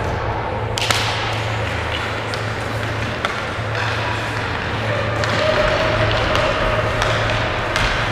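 Ice hockey play: a few sharp clacks of sticks on the puck, the first about a second in just after the faceoff, over a steady low hum and a hiss of skates on the ice.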